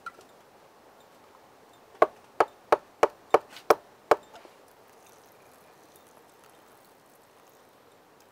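Knife blade stabbing through the tin lid of a can of coconut milk to cut it open: seven sharp metallic knocks, about three a second, over two seconds near the middle.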